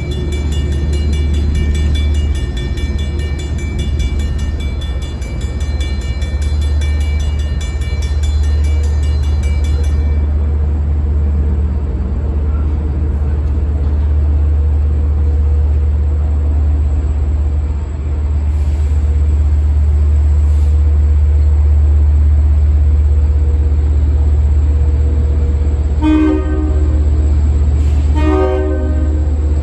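Railroad crossing bell ringing rapidly as the warning signals flash and the gates come down, stopping about a third of the way in, over a steady low rumble. Near the end an approaching Long Island Rail Road diesel train sounds its horn in two short blasts.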